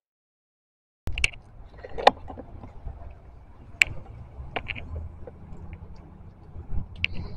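Outdoor parking-lot ambience after about a second of silence: a low steady rumble with a few sharp clicks and taps from walking with a handheld camera.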